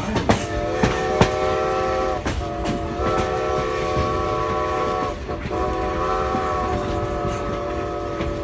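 Steam locomotive's chime whistle blowing several long blasts of a steady multi-note chord, with short breaks between them. Under it runs the rumble and clickety-clack of the rolling train.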